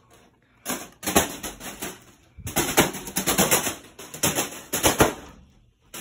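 Ceiling fan blades repeatedly slapping a foil (Mylar) balloon, a rapid crackling flutter of hits that sounds like the balloon is about to pop. It comes in two stretches, with a short break about two seconds in.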